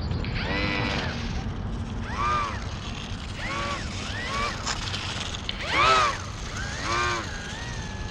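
The micro RC plane's small electric motor and propeller revving up and back down in about six quick throttle blips while it taxis on the ground, each a short whine that rises and falls in pitch. A steady low rumble runs underneath.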